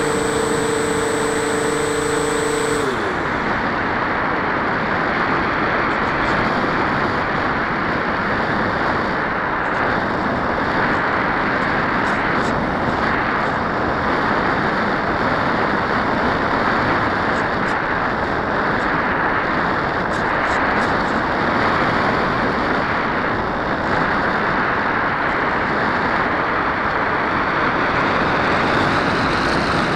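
Onboard sound of an RC plane's Turnigy 2210 brushless motor spinning a 6x4 propeller with a steady high whine, throttled back about three seconds in with a quick falling pitch. After that comes a steady rush of wind past the airframe as the plane glides.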